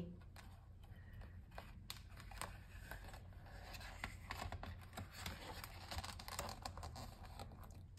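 Faint rustling and scraping of a book page being lifted and turned by hand, with a few light taps along the way.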